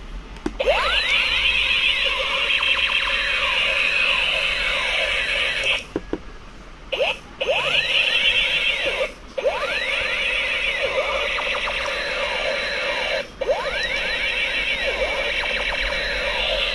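Battery-operated toy gun's electronic sound effect from its small speaker: overlapping rising and falling zap tones repeating over and over, cutting out briefly several times.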